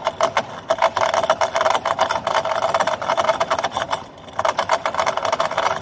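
Lateral reinstatement cutter spinning inside a clear PVC pipe, rattling and knocking against the pipe wall under a steady whine as it cuts out the branch opening. It stops briefly about four seconds in, then starts again.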